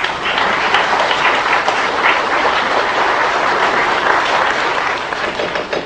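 Audience applause: many hands clapping in a dense, steady clatter that thins near the end.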